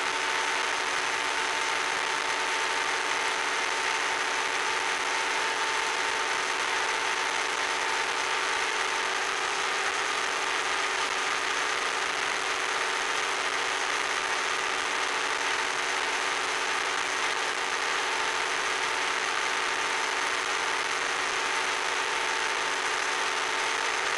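Electric RC plane's motor and propeller running at a steady cruise, a constant whine over a steady hiss of rushing air and noise, with no change in pitch.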